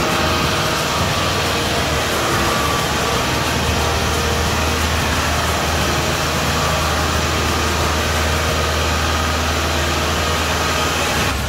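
Kubota DC-70 combine harvester's diesel engine running steadily with a constant low hum.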